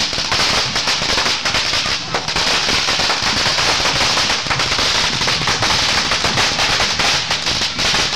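Firecrackers going off in rapid, unbroken succession, many small bangs a second with no pause.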